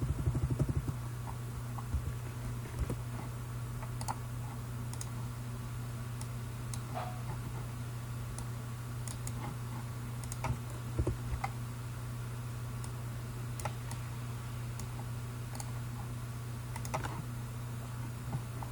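Scattered clicks of a computer keyboard and mouse, a few every couple of seconds, over a steady low hum.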